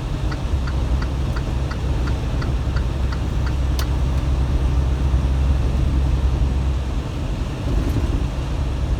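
Inside a semi truck's cab, the diesel engine and road noise make a steady low rumble that eases about seven seconds in. Over it, a turn signal ticks about three times a second for the first few seconds, and there is one sharper click near the middle.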